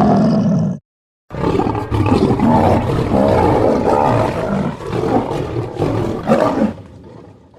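White lion roaring: a roar that cuts off abruptly just under a second in, then after a brief silence a long spell of roaring that fades out near the end.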